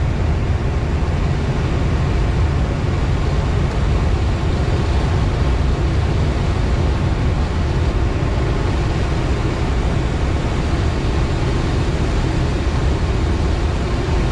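Steady rushing airflow of a glider in flight, air streaming past the canopy and wings with no engine sound.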